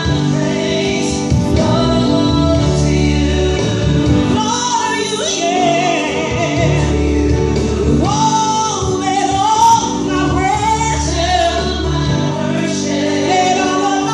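Gospel worship singing: a female voice sings a melody with held notes over sustained instrumental backing.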